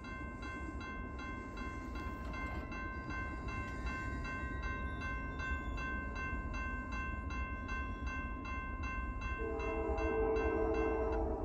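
Railroad crossing signal bell ringing steadily, about three strikes a second. About nine seconds in, the approaching Norfolk Southern locomotive's air horn sounds a chord of several notes and holds.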